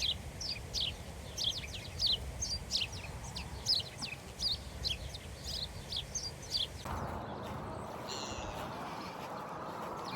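Small birds chirping, a dense run of short, quickly falling chirps. About seven seconds in the sound changes abruptly to a steady hiss with a few fainter bird calls.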